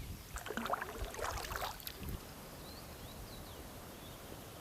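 Water splashing and dripping from a packraft paddle in a quick cluster of strokes for about two seconds, stopping suddenly, followed by faint steady background with a few high bird chirps.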